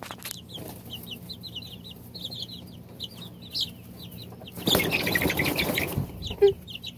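Young chickens peeping over and over, short high calls overlapping from several birds. About five seconds in, a second or so of scuffling and rustling comes as a watermelon slice is set down among them, followed by one sharper, louder call.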